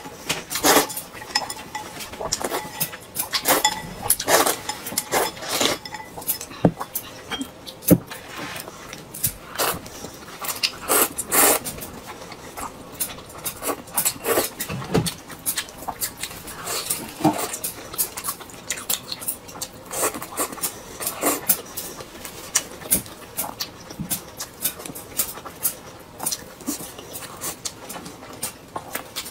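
Eating sounds: noodles slurped from a soup bowl and chewed, with many short clicks and clinks of chopsticks against ceramic bowls.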